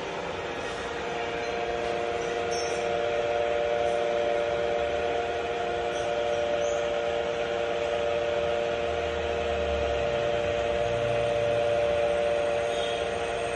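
Batliboi radial drilling machine running: a steady mechanical whine and drone from its motor and gearbox.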